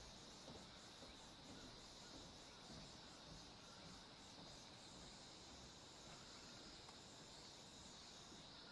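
Faint, steady chirring of insects, with a fast pulsing high note over roughly the first five seconds.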